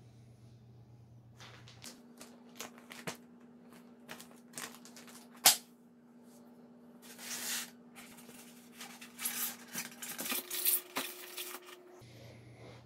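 Hands handling a model train set's packaging: a scatter of small clicks and knocks, one sharp click about five and a half seconds in, and bursts of plastic crinkling and rustling.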